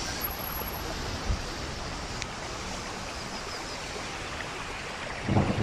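Rain falling in a steady hiss. Near the end a gust of wind suddenly buffets the microphone with a louder low rumble.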